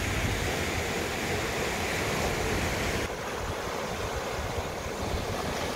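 Steady rush of wind and sea waves, with wind gusting on the microphone; the hiss eases slightly about three seconds in.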